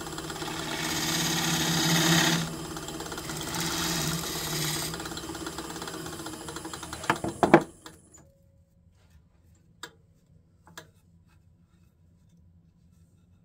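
Wood lathe running while a gouge cuts the spinning cherry-burl blank, a hissing cut in two passes over a steady motor hum. About eight seconds in, the lathe winds down and stops, followed by two faint taps.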